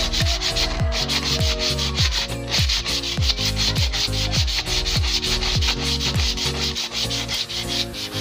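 A hand polishing the metal engine cover of a Honda TMX 125 Alpha motorcycle, rubbing in quick repeated scrubbing strokes. Background music with a deep, regular bass beat plays underneath.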